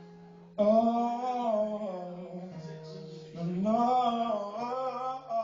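Live song with acoustic guitar accompaniment: a wordless sung vocal line enters about half a second in with long held, wavering notes, and a second phrase comes in just past the middle.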